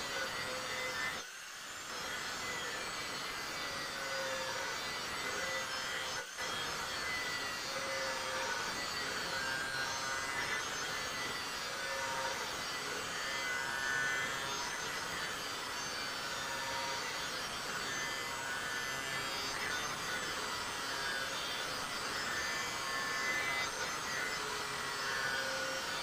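Handheld angle grinder running steadily with its disc ground against a steel kukri blade: a continuous whine over the rasp of disc on metal, with two very short breaks, about one and six seconds in.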